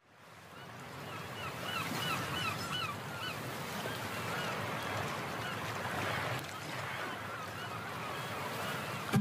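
Steady rushing noise fading in, with a quick run of about six short, evenly spaced calls from a bird roughly two seconds in.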